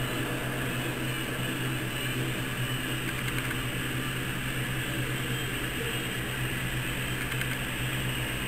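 Steady low hum with a hiss, unchanging throughout: background machine noise.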